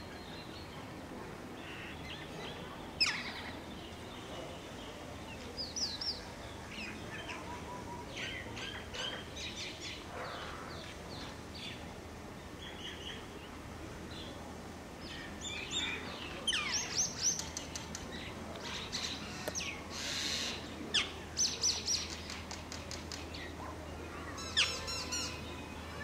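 Birds calling and chirping: many short, high chirps, scattered at first and coming thick and fast in the second half, with a louder call about three seconds in.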